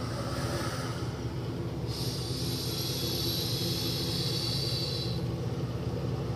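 A long hiss of vapor jetting out of the side port of a costume gas mask, starting about two seconds in and stopping at about five seconds, over a steady low rumble.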